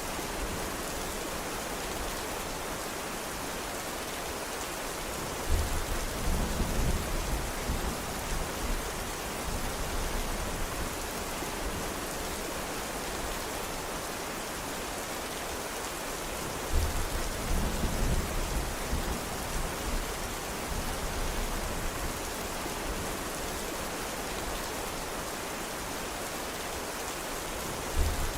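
Steady heavy rain hissing, with a low rumble of thunder breaking in suddenly about five seconds in and again near the middle, each lasting a few seconds, and a third starting right at the end.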